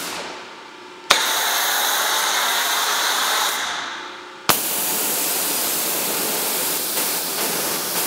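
Pressure-washer spray gun with a Mezzo Wash System jetting water at a car panel. The spray dies away at the start, snaps back on with a sharp crack about a second in with a higher-pitched hiss while foam is sprayed, dies away again near four seconds, and snaps back on with another crack for the final rinse.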